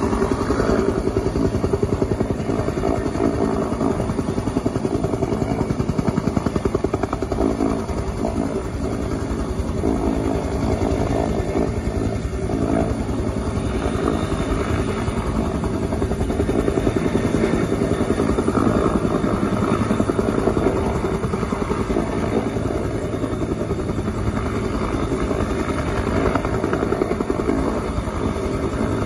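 Bell UH-1 Huey helicopter hovering low, its engine and two-bladed rotor running steadily with a fast, even pulsing beat.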